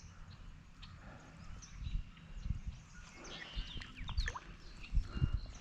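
Soft, irregular thuds of footsteps wading and stepping along the creek, with small birds chirping thinly in the background.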